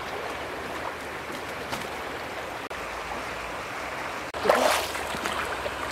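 Steady rush of a fast-flowing river, with a louder, brief burst of sound about four and a half seconds in.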